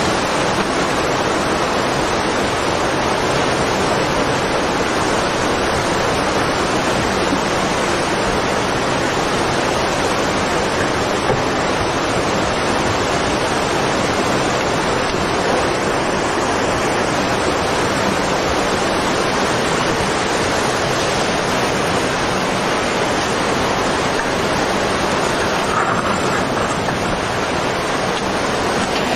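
Tsunami floodwater rushing past, carrying debris: a steady, unbroken noise of moving water.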